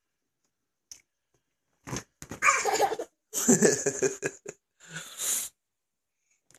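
Toddler laughing in three breathy bouts, starting about two seconds in.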